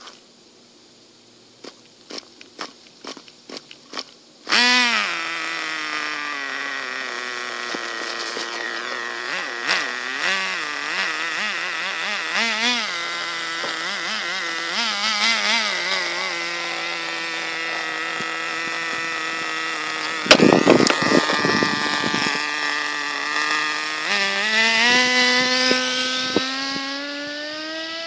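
Redcat Shockwave nitro RC buggy's glow engine: a series of short clicks from starting attempts, then the engine catches about four seconds in and runs with a high buzzing note whose pitch wavers with the throttle. A burst of rougher noise comes around twenty seconds in, and the pitch climbs near the end before fading as the buggy drives away.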